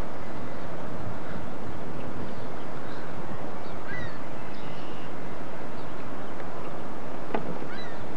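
Steady rushing outdoor noise from wind on the microphone and water as a lake freighter passes close by. Short, high, falling bird calls come through about halfway and again near the end.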